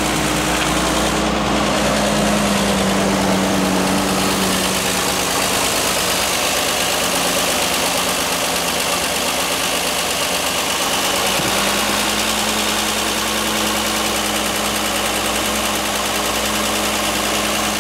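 International R-185 fire truck's carbureted engine running steadily on its first run after sitting about six years, its speed drifting up and down, which the owner puts down to his makeshift fuel system.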